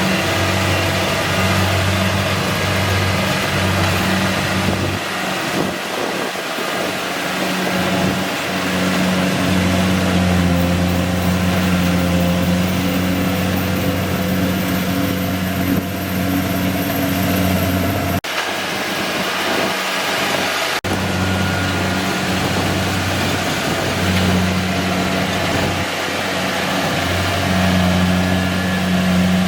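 Kubota DC-70G PRO rice combine harvester's engine running steadily, its hum briefly weakening a couple of times.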